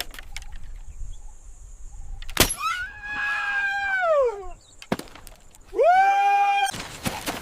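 A sharp chop-like crack, then two long high-pitched cries: the first is held and falls away at its end, the second swoops up and holds. Near the end, noisy crackling with scattered clicks.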